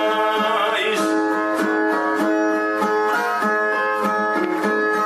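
Brazilian viola plucked in an instrumental interlude between sung stanzas of repente. A singer's wavering held last note dies away about a second in.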